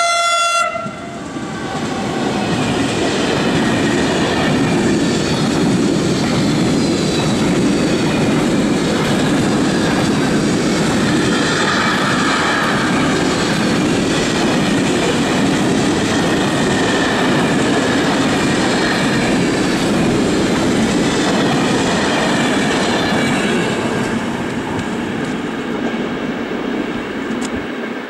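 Electric locomotive's horn blast cutting off within the first second. Then a long intermodal container freight train passes at speed, its wheels and wagons running by loudly and steadily, fading in the last few seconds.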